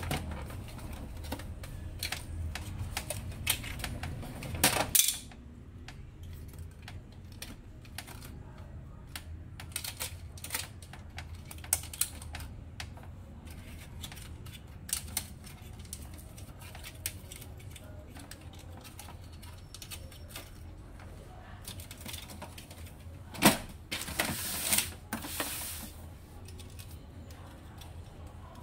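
Irregular plastic clicks and knocks as the housing and internal parts of an HP LaserJet M26a laser printer are handled and taken apart. Near the end there is one sharp snap, followed by a couple of seconds of rustling and scraping.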